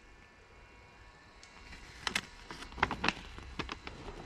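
A paper instruction booklet being opened and handled: a string of short, sharp paper crackles and rustles, starting about two seconds in.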